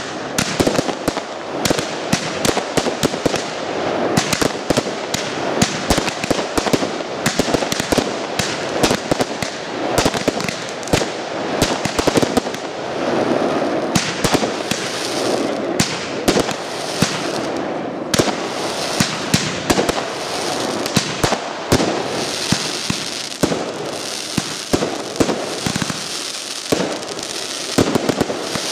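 Professional aerial fireworks display: a dense, unbroken barrage of shell bursts and bangs over constant crackling.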